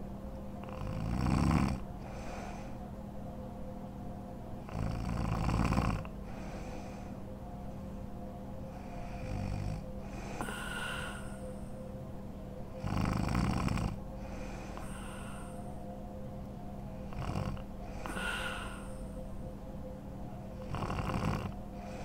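A woman snoring in her sleep, with four loud snores several seconds apart and softer snoring breaths between them, over a steady low hum.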